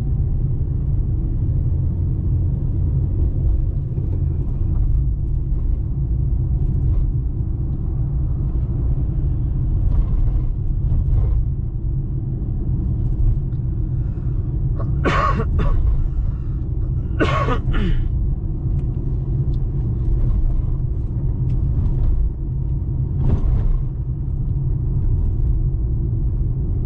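Steady low drone of a car's engine and tyres on the road, heard from inside the moving car. Two short sharp noises stand out about fifteen and seventeen seconds in, and a fainter one a few seconds before the end.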